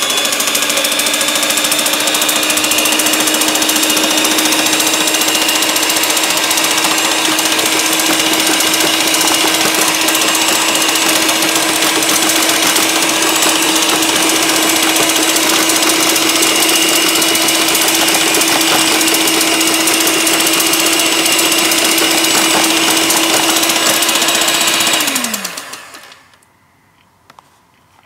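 Electric hand mixer motor running at a steady high speed, its beaters fitted with coloured pencils that scrape and rattle against paper. About 25 seconds in the motor winds down and stops.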